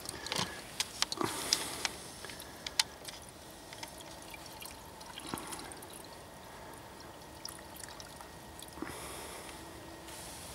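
Liquid being poured and handled, with scattered light clicks and knocks.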